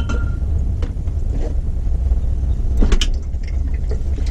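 Small knocks and clicks of bottles being moved about in a refrigerator door shelf, with one sharper knock about three seconds in, over a steady low rumble.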